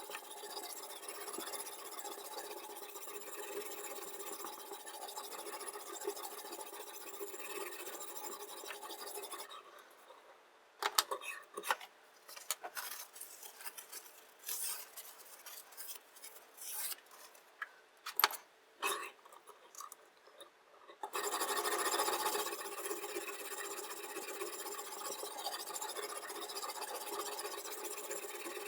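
Diamond sharpening stone in a guided knife-sharpening system rubbing along a chef knife's edge in quick continuous strokes. About ten seconds in the steady grinding stops and gives way to separate short scrapes and clicks, then resumes for the last third.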